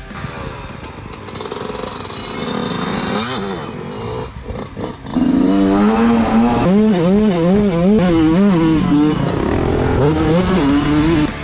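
Dirt bike engine heard from an onboard camera as the bike is ridden on a dirt track. It is quieter at first and gets much louder about five seconds in, its pitch rising and falling again and again as the rider works the throttle.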